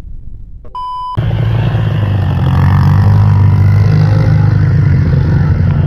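A short electronic beep about a second in, then a vehicle engine running steadily and loudly.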